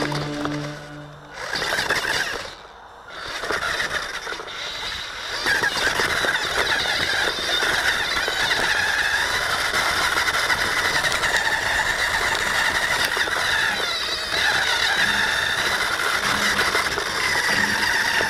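Background music fades out in the first second and a half. Then the electric RC off-road vehicle's motor and gearbox whine steadily as it drives, with mechanical rattling from the chassis.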